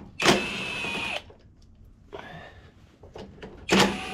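Cordless drill-driver with a socket spinning out two 7/16-inch bolts, in two steady runs of about a second each, one near the start and one near the end, with small clicks between.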